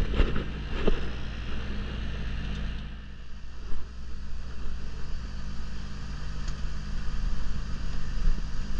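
Air-conditioner outdoor condensing unit running steadily, with a low compressor hum under the fan's air noise. It is running with its hard start kit taken out of the circuit. A couple of light knocks come in the first second.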